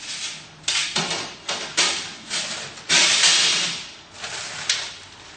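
A plastic bag of accessories (drain tubes and filling funnel) rustling and crinkling in bursts as it is handled and drawn out of a steriliser chamber, with a few sharp knocks and clicks.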